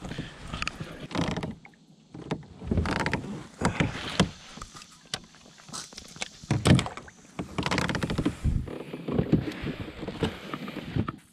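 Irregular knocks, bumps and scuffs of handling on a plastic fishing kayak while a largemouth bass is landed and lifted aboard.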